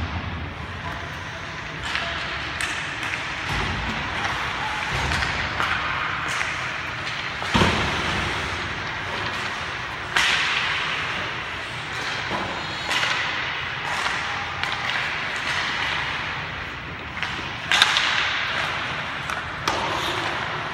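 Ice hockey play: a steady scrape of skate blades on the ice, broken by sharp cracks of sticks on the puck and thuds against the boards. The loudest of these come about seven and a half, ten and eighteen seconds in.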